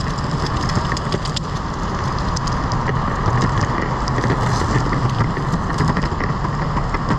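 Pantheon Trip longboard's wheels rolling over pavement: a steady, loud rumble with frequent irregular clicks from cracks and joints in the surface.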